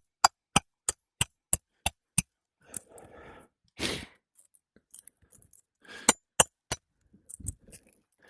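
A hammer driving roofing nails into asphalt shingles with quick, evenly spaced sharp strikes, about three a second. A short scrape follows, then three more strikes.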